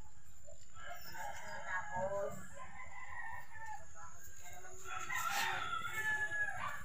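Faint rooster crowing, twice: once about a second in and again about five seconds in.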